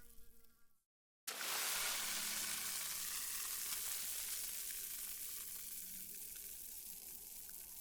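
Water foaming, a dense crackling fizz of many small bubbles popping. It starts abruptly about a second in, after a moment of dead silence, and slowly dies away.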